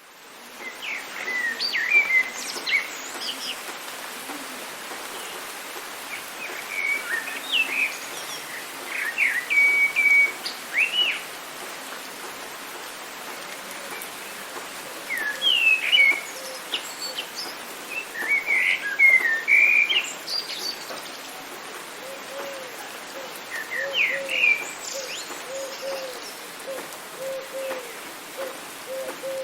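Songbirds singing short, quick chirping phrases in several bursts over a steady hiss of rain, fading in at the start. In the last several seconds a low call repeats steadily, about once a second.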